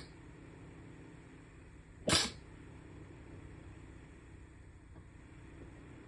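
A single short, sharp sneeze about two seconds in.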